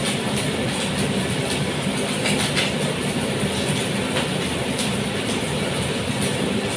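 Wooden spoon stirring soup in a pot, with a few light knocks against the pot over a steady rumbling hiss.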